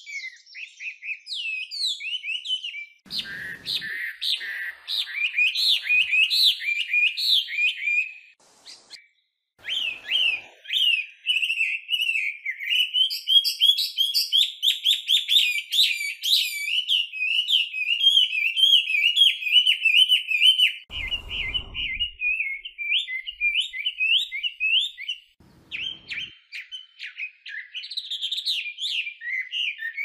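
Chinese hwamei singing: a long, fast run of varied whistled phrases, sweeping up and down, with a short pause about nine seconds in.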